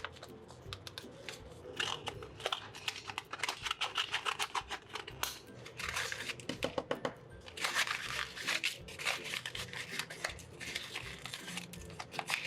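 Paper being handled, crinkling and tearing in quick irregular rustles and clicks, in short bursts with brief lulls.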